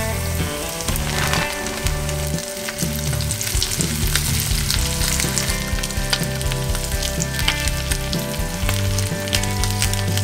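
Hot oil sizzling and crackling in a frying pan as batter-coated frog legs are lowered into it one by one.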